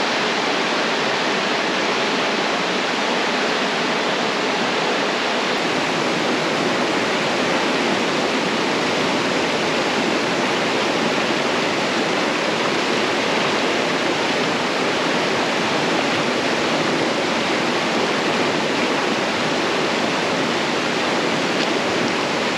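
A flood-swollen river rushing over rocky rapids: a loud, steady rush of water with no change through the stretch.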